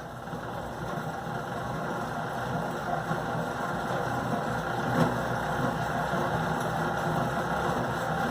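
Old two-frame honey extractor starting to spin: a steady mechanical rumble and rattle from its gears and basket that builds over the first couple of seconds, with one sharp click about five seconds in.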